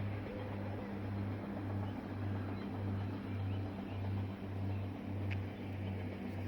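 A low hum pulsing on and off in an even rhythm, about one and a half beats a second.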